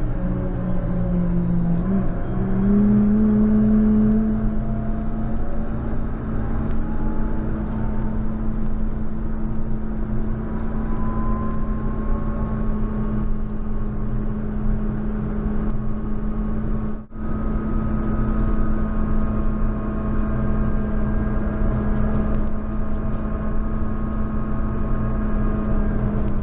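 JCB Fastrac 4220 tractor engine running steadily under load with a constant pitched drone, its note stepping up about two seconds in and then holding. The sound drops out very briefly about two-thirds of the way through.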